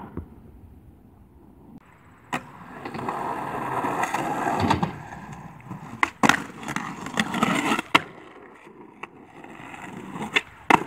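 Skateboard wheels rolling, the rumble swelling twice, with several sharp clacks of the board striking the ground.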